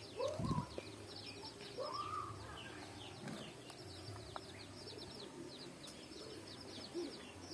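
A crowd of baby chicks peeping: many short, high chirps that fall in pitch, overlapping, with a few lower calls among them. A low thump about half a second in.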